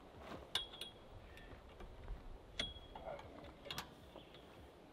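A few sharp metallic clinks as the wind generator's metal mast pole knocks against its mounting bracket while it is being set in place, some with a brief ring.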